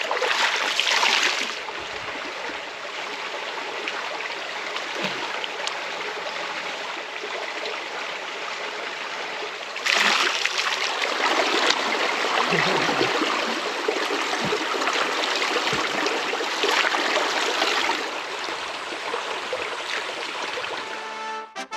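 Flowing river water: a steady rush that swells louder in a few stretches.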